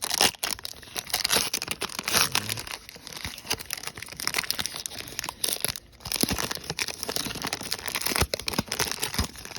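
Wrapper of a WWE trading card pack crinkling and rustling as it is handled and the cards are pulled out, with many small crackles and a short lull about six seconds in.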